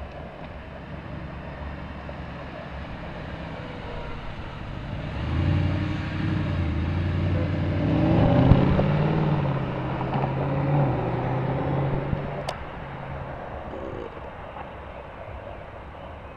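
Mercedes-Benz SLS AMG's 6.2-litre V8 accelerating gently past: its engine note grows as it approaches, is loudest about eight seconds in as it goes by, then fades as it drives away. A sharp click about twelve seconds in.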